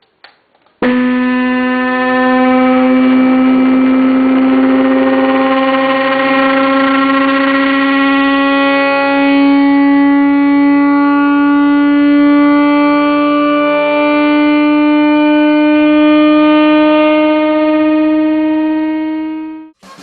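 A buzzy test tone of a few hundred hertz from a computer frequency generator, played through a car subwoofer. It holds steady, steps up slightly in pitch twice, and cuts off suddenly near the end.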